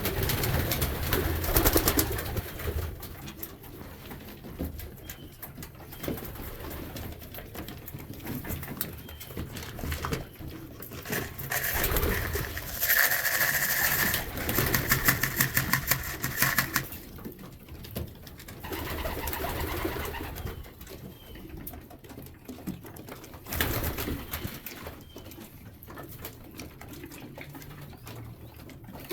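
Domestic pigeons cooing in an enclosed loft, with louder stretches of noise among them, the loudest in the middle.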